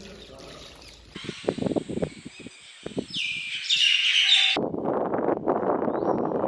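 Birds chirping briefly about three seconds in, after a few scattered knocks. Near the middle a loud, steady rushing noise starts abruptly and carries on.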